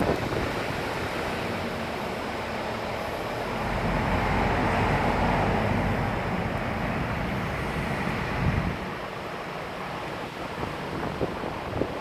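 A steady rushing noise, like moving air, that swells about four seconds in and eases back by about seven seconds.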